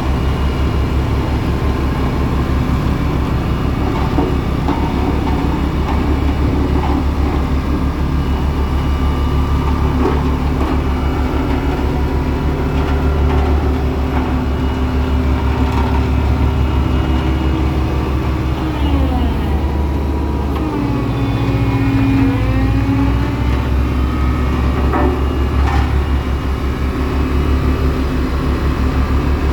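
Diesel engine of heavy construction machinery running steadily, its pitch shifting about two-thirds of the way through as the engine speed changes.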